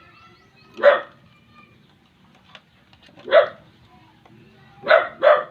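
A dog barking: four short barks, the last two in quick succession.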